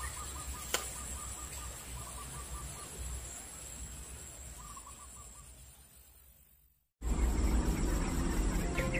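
Outdoor background with an animal calling in several quick runs of short notes, fading out about seven seconds in; background music then starts.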